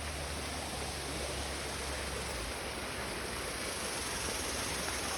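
Steady rushing of a flowing stream, with a low rumble that fades out about halfway through.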